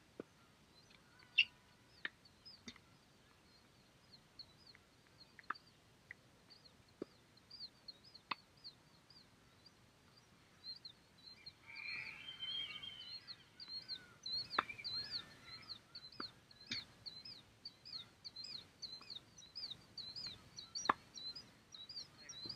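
Tennis balls being struck and bouncing during a rally: faint sharp knocks come every second or few, about eight in all, the loudest near the start and near the end. Under them a bird chirps over and over in short high notes, more busily in the second half.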